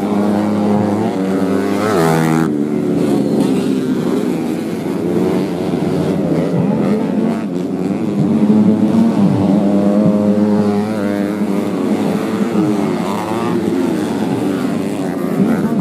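Several underbone-class racing motorcycles on a dirt track, engines revving hard and backing off as they race, with overlapping engine notes rising and falling in pitch.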